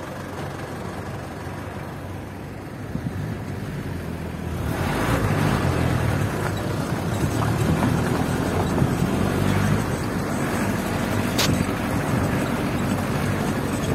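Jeep engine heard from inside the vehicle, running quietly at first and then pulling away about four and a half seconds in, much louder as it drives over the rocky track. A single sharp click near the end.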